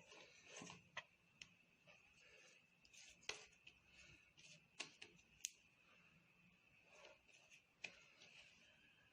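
Near silence with scattered faint, sharp clicks and light taps over a faint steady high hum.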